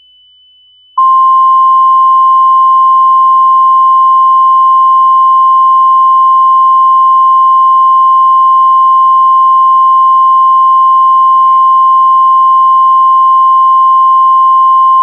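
A single loud, steady alarm tone just above 1 kHz starts about a second in and holds without a break. It is the NOAA Weather Radio 1050 Hz warning alarm tone that comes before an Emergency Alert System tornado warning. Faint steady high tones sound under it.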